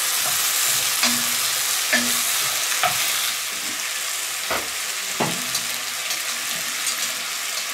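Potatoes, carrots and celery sizzling in broth in a cast-iron Dutch oven over charcoal, stirred with a spoon, with a few sharp knocks of utensils against the pot. The sizzle softens after about three seconds.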